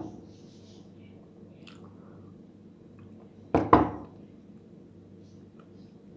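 A person chewing a mouthful of bread sandwich with the mouth closed, over a steady low hum. One short, sharp noise comes about three and a half seconds in.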